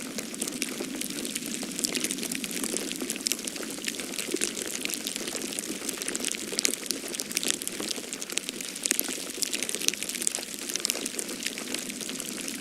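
Falling-snow ambience: a dense, steady patter of many tiny ticks over a low even hiss, with no single event standing out.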